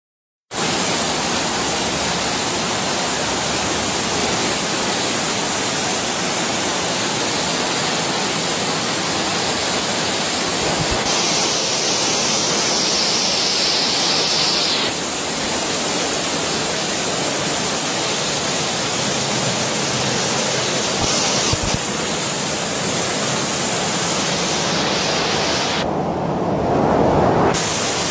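Floodwater cascading down a flight of stairs and rushing across a flooded floor, a steady loud rush of water. Near the end it briefly turns louder and duller.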